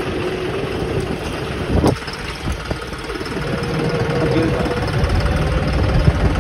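John Deere 5405 4x4 tractor's diesel engine running steadily at low speed while the tractor is driven, with a short thump about two seconds in.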